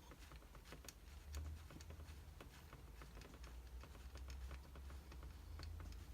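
Faint, irregular small plastic clicks from a Lego Technic model being handled while its rear section is raised, over a low steady hum.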